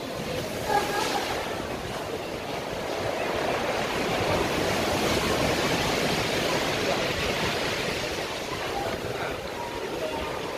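Steady rush of water and surf echoing inside a rocky cave, growing slightly louder about four seconds in.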